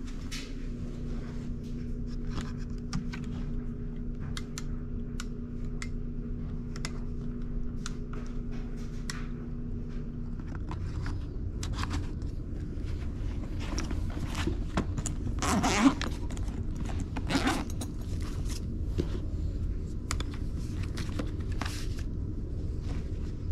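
Tools clicking and rattling as they go into a Veto Pro Pac tool bag, with the bag's zipper drawn twice a little past the middle. Under it runs a steady low hum that stops about ten seconds in.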